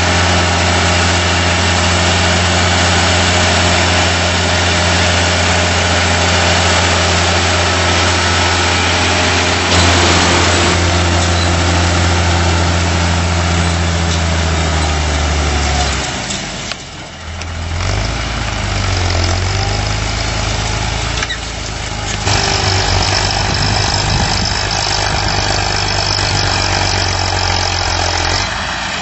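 Steyr tractor's diesel engine working steadily under load, pulling a cultivator through dry soil. The engine note changes and briefly dips in loudness about halfway through.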